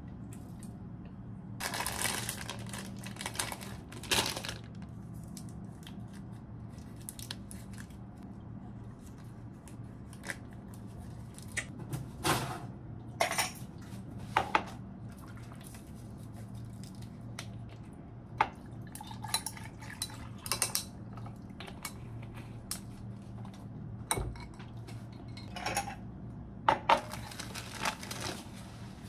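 Kitchen handling sounds: scattered clinks, knocks and clatter as a tin, packets and a glass are picked up and set down on a counter, over a steady low hum.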